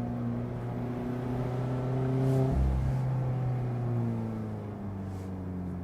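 2024 Mazda MX-5 Miata's 2.0-litre four-cylinder through an aftermarket exhaust, revs climbing under acceleration. A brief break for a gear change comes about two and a half seconds in, then the revs fall away off the accelerator.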